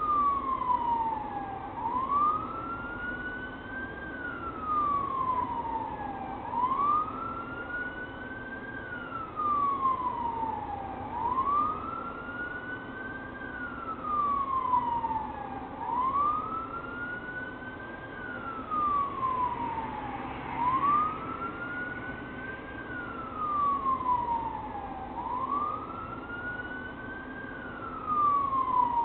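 Police car siren on a slow wail, its pitch climbing and falling about every five seconds. A second, fainter siren sweeps higher in the background.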